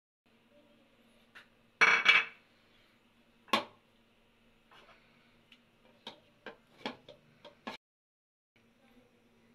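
Small dish and plastic bowl clattering and clinking as ingredients are tipped onto raw fish: a loud double clatter about two seconds in, a single sharp knock a little later, then a run of lighter clicks.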